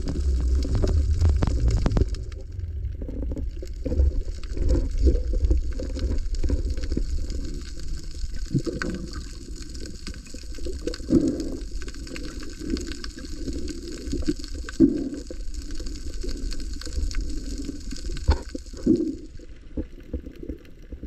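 Muffled underwater water noise from a camera in its housing: a low, churning gurgle with scattered knocks and bumps.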